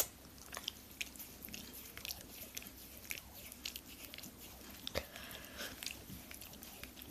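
A Staffordshire bull terrier licking a person's face close to the microphone: an irregular run of faint, wet smacking clicks, with one sharp click right at the start.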